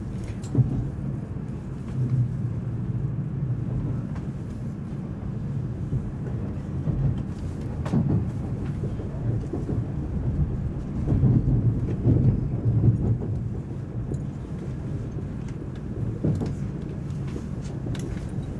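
Low, steady running rumble of an N700-series Tokaido Shinkansen heard from inside the passenger cabin as it rolls into a terminal station, swelling at times, with a few brief clicks.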